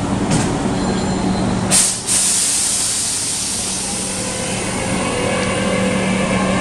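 Hankyu 8300-series electric train at a standstill with a steady low hum, a short loud hiss of air released from the brakes about two seconds in, then the traction inverter's whine starting and rising in pitch near the end as the train begins to pull away.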